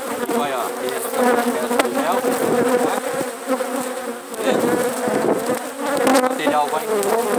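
Loud buzzing of many honeybees flying close around the open hive, their pitch wavering up and down. The colony is stirred up after its bees have been shaken off the frames during the hive manipulation.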